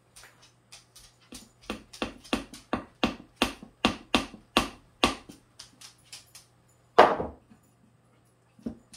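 Hammer driving nails into pine boards: quick repeated taps, about three a second, growing louder and then thinning out, with one heavier knock about seven seconds in.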